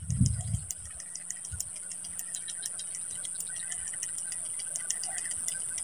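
Spinning fishing reel being cranked on a lure retrieve: a fast, uneven run of small clicks and ticks, over a steady high insect buzz from the swamp. A few low thumps near the start.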